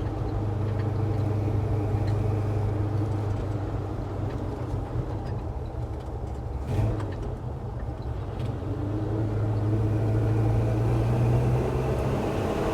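1966 Chevy C10's 383 stroker V8 running steadily under way, with one brief knock about seven seconds in and the engine growing a little louder near the end.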